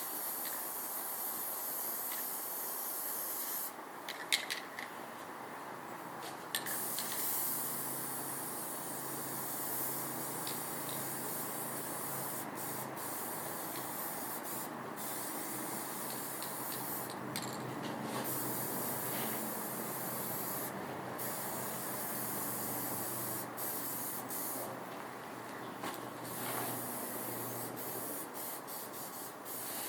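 A steady spraying hiss, broken by short pauses several times, with a faint low hum underneath from about eight seconds in.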